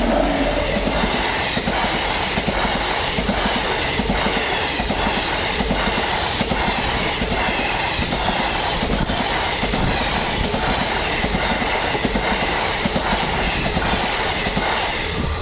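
A train passing close by at speed: a steady rumble with its wheels clacking over the rail joints in a continuous run of clicks.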